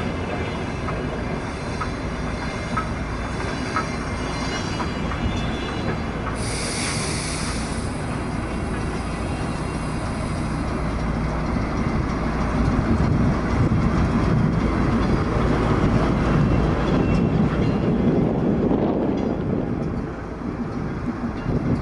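Passenger train rolling slowly past at close range, with wheels clicking over the rail joints and squealing on the rails. A short hiss comes about six seconds in. Near the end a louder low rumble builds as the DR1A diesel trainset's power car draws level.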